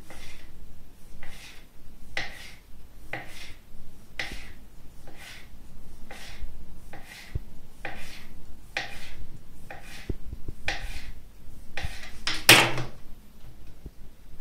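A sharp kitchen knife cutting a rolled sheet of thin homemade noodle dough against a table, one short chop about every half second, with one louder knock near the end.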